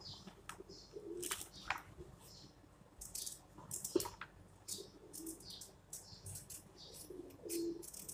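Knife blade scraping the skin off a red carrot in short, dry strokes, several each second with brief pauses between.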